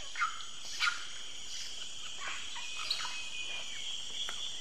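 Tropical rainforest ambience: a steady high insect drone with scattered short bird calls, two louder chirps in the first second and a long thin whistle around the middle.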